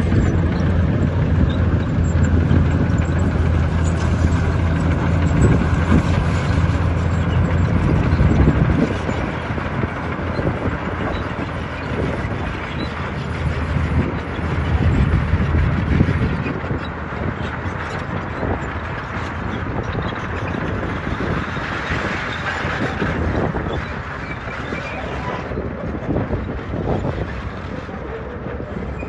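Heavy diesel earthmoving machinery working. A deep, steady engine drone drops away about nine seconds in, leaving a rougher mechanical rumble with scattered knocks.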